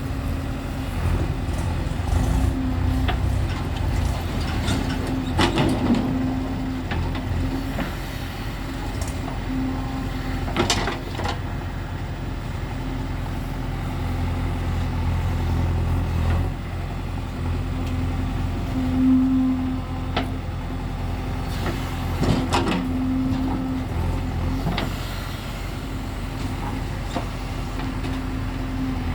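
Heavy diesel machinery of a backhoe loader and tractors running steadily, the engine note swelling at times as the machine works. Several sharp metallic clanks stand out over the engine noise.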